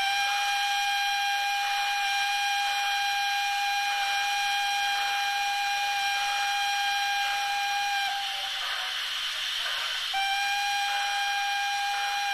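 Sound decoder of a model FS Gr 685 steam locomotive playing its steam whistle: one long steady blast of about eight seconds, then a second, shorter blast about two seconds later, over a steady hiss of steam.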